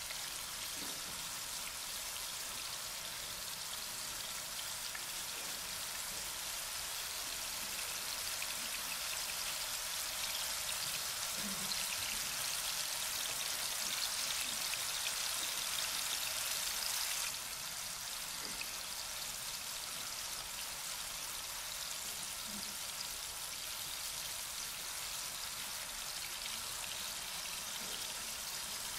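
Food sizzling in frying pans on a hotplate, close-miked so that it sounds like steady rain. The hiss swells and then drops back suddenly about two-thirds of the way through.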